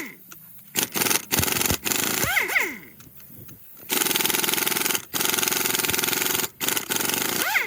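A handheld power tool sanding or grinding the rusted engine parts in short bursts. Each time the tool is let off, its motor whine falls away, about two seconds in and again near the end.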